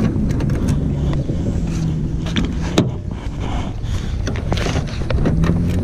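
A key clicking in a car door lock and the door latch opening: a few sharp clicks, the loudest about halfway through, over the steady low hum of a running vehicle engine.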